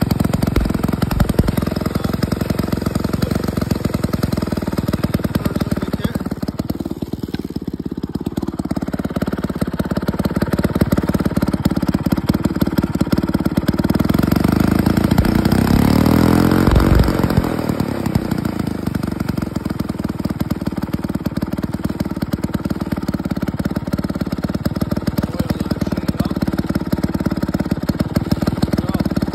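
Vintage Festo two-man chainsaw's two-stroke engine running after sitting unused for many years. It revs up about halfway through and falls back to a steady run.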